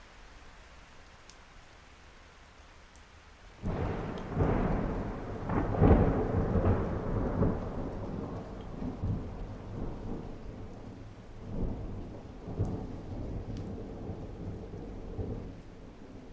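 Steady rain with a thunderclap breaking out about three and a half seconds in, then rolling on in long rumbles that slowly fade, with a few further swells of rumble near the end.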